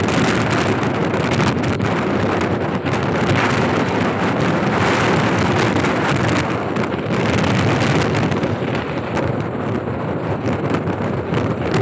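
Steady wind rushing over the microphone of a moving motorcycle, mixed with road and engine noise while riding at speed on a highway.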